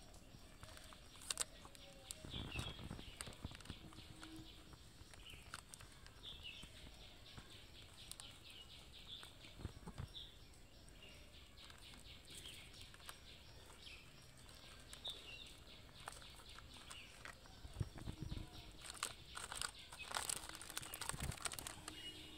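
A cat and kitten eating from a plastic food packet: soft rapid chewing and lapping clicks with crinkling of the packet. Faint short high chirps sound now and then, and the rustling gets louder near the end as the packet is moved.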